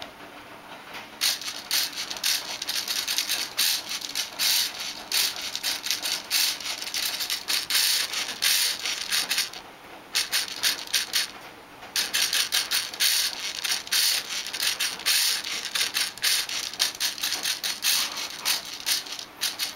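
Rapid, irregular rattling and clicking in bursts, with two short breaks near the middle, from an Android phone being shaken by hand and the LEGO Mindstorms NXT robot whose motors it drives.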